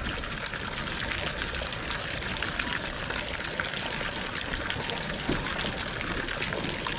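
A steady stream of water pouring and splashing into a water-filled plastic tub, with many short splashes as a black bear moves about in the water.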